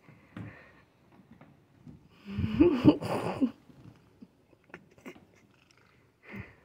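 Domestic cat giving one drawn-out, wavering meow a little over two seconds in, while being petted.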